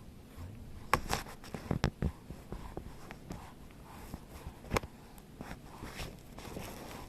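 Scattered light knocks and taps, a cluster of them about a second in and a single sharper one near the five-second mark.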